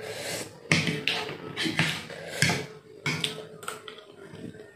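Eating sounds of instant noodles being chewed and slurped: a string of short, sharp, wet smacks and clicks, with a fork and spoon tapping the plate, thinning out toward the end.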